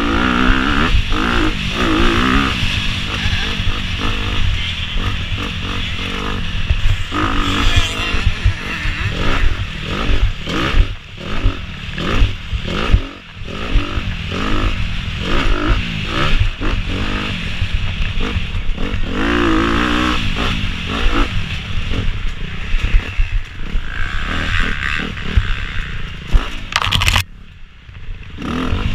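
Dirt bike engine ridden hard on a rough track, its revs climbing and dropping over and over as the rider works the throttle and gears. About two seconds before the end the engine sound drops away briefly, then picks up again.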